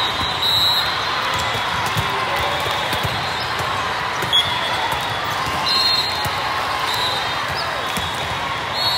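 Volleyball gym sound: balls thudding as they are hit and bounce on the court, over a steady din of voices. Short high squeaks sound now and then.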